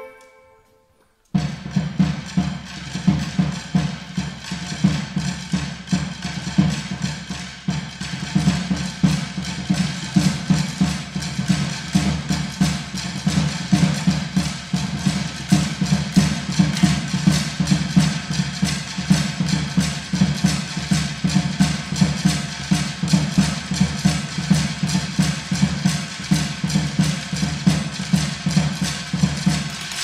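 Percussion section playing a fast, even rhythm with drumsticks on long wooden boards, together with a drum kit. It starts about a second in, after a short silence.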